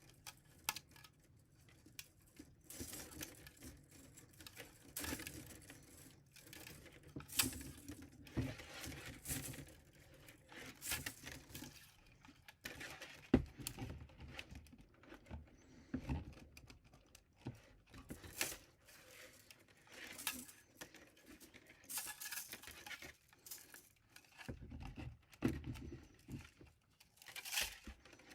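3D printer filament and a plastic spool being handled as filament is respooled: irregular rustling and crinkling with scattered clicks and taps.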